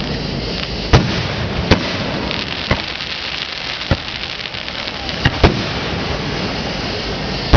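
Aerial firework shells bursting: about seven sharp bangs at uneven intervals, the loudest about a second in and near the end, over a steady hiss.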